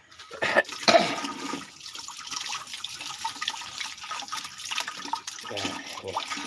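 Water running from an outdoor tap and splashing into a basin of water, with a lemongrass stalk being rinsed under the stream. A couple of sharp knocks come in the first second.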